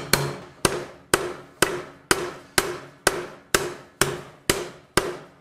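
Ball-peen hammer striking a flat steel bar clamped in a bench vise, about two blows a second, each blow followed by a short metallic ring. This is the cold bend of the bar into a right angle being finished by hammering.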